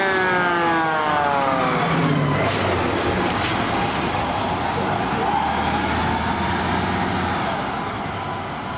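Fire engine's siren winding down, its pitch falling steadily over the first two seconds, followed by two short air-brake hisses about a second apart. The truck's diesel engine rumbles as it passes close by and pulls away.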